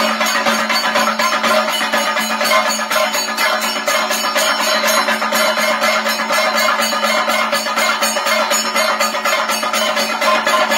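Thayambaka: chenda drums beaten fast and evenly with sticks in a dense, unbroken roll. Elathalam hand cymbals ring steadily over the drums.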